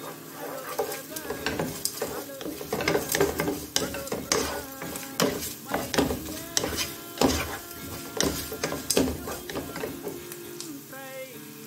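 Wooden spatula stirring and scraping sliced onions, green chillies and curry leaves around a non-stick pan, with irregular knocks against the pan over the sizzle of frying in oil. The onions are being sautéed with salt until they soften and turn golden.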